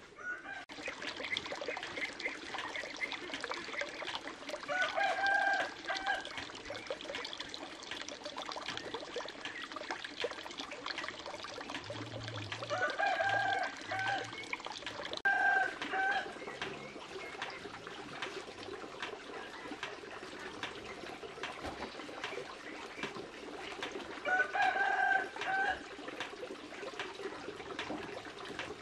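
Rooster crowing several times, each crow about a second long, over a steady background of faint clicks and rustle.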